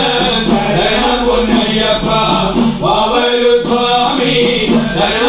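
A group of men chanting a Malayalam Sasthampattu devotional song in chorus, accompanied by the steady rhythm of udukku, small hand-held hourglass drums.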